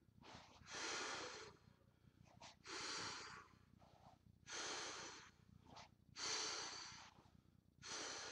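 A man breathing out hard through his nose and mouth with each arm block, five sharp breaths about every two seconds, with short quick breaths in between.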